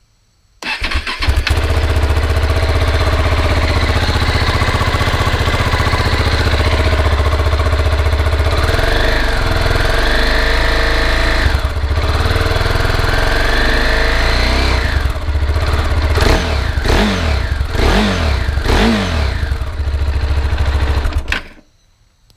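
KTM 690 Duke single-cylinder engine idling, with two slower rises in revs and then several quick throttle blips near the end. The sound starts and stops abruptly.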